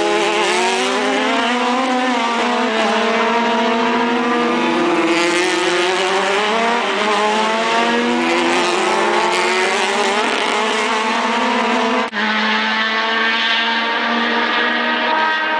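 Race car engines running hard, their pitch rising and falling as cars shift and go by. The sound breaks off abruptly about twelve seconds in, then an engine note carries on at a steadier pitch.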